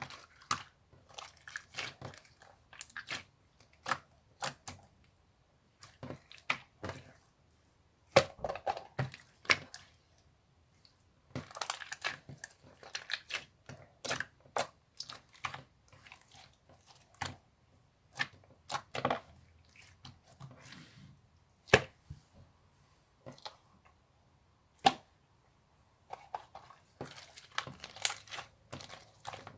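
Clear slime being squished and stretched by hand, making irregular sticky clicks, pops and crackles in clusters with short pauses between them.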